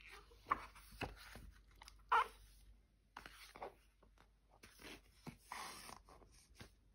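Hardcover picture book handled on a wooden table: faint rustles and rubs with a few light knocks as it is closed and turned over.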